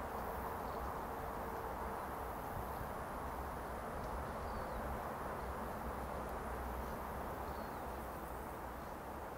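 Rural outdoor ambience: a steady hiss with a low, gusting rumble of wind on the microphone, and a few faint short chirps.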